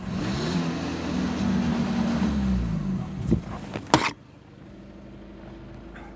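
A VW Golf 2.0 TDI four-cylinder turbodiesel engine revved up and let back down to idle, then two sharp knocks, after which the idle goes much quieter. The owner suspects a failing turbo.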